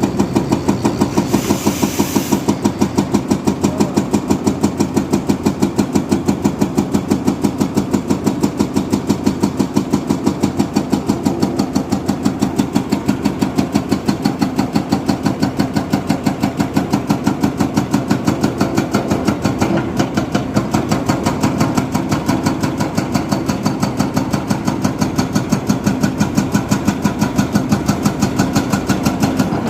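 Diesel engine of a heavy machine such as a backhoe loader or tractor running steadily with a regular pulsing beat. A short hiss comes about a second in.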